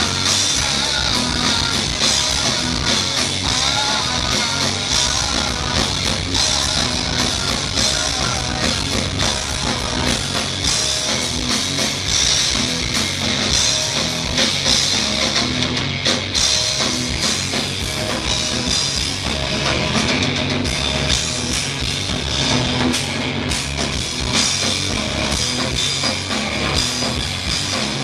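Live rock band playing: electric guitar, bass guitar and drum kit, loud and continuous.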